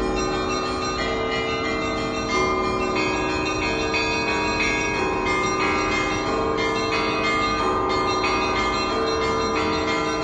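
St. Isaac's Cathedral's Orthodox church bells ringing for the evening service: several bells of different pitch struck again and again, their tones overlapping and ringing on.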